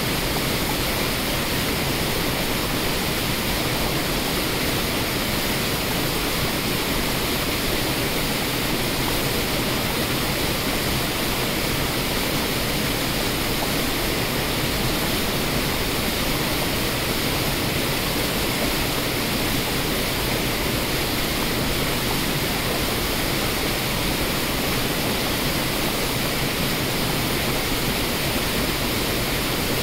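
Rushing water of a waterfall pouring over rock ledges into rapids: a steady, unchanging rush of noise.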